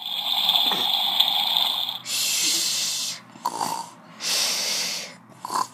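Pretend snoring: several breathy, hissing snores in a row, made for toy figures lying in bed.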